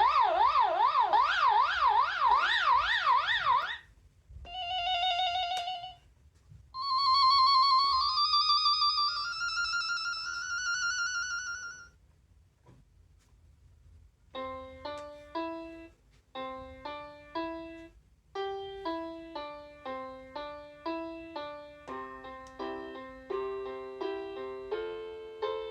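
Children's battery-powered electronic toy keyboard playing its built-in sounds: a fast warbling siren-like effect for about four seconds, a short tone, then a few held notes stepping upward. From about fourteen seconds in, a tune of short, evenly paced notes with a lower accompaniment plays on.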